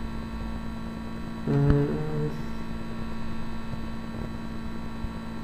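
Steady electrical mains hum with a fixed low tone, picked up by the recording microphone. About a second and a half in, a brief held hesitation sound from the voice comes with a single click.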